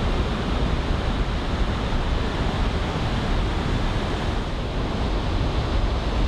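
Ocean surf washing onto a sandy beach, a steady rush raised by typhoon swell, with wind rumbling on the microphone.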